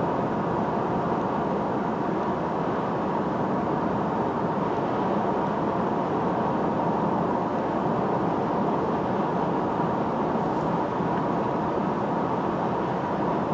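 Steady road and engine noise of a car cruising at a constant speed, heard from inside the cabin, with a thin steady tone running through it.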